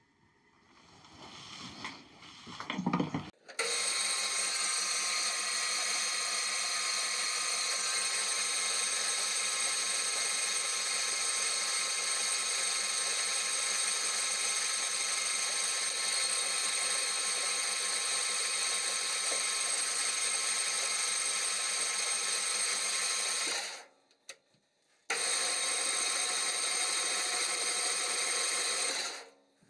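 Cyrrtec Profiturn 2865GC metal lathe's geared headstock running with diesel inside as a flush during an oil change: a steady whine of several fixed tones. It starts up about three seconds in, stops for a moment about twenty-four seconds in, then runs again until just before the end.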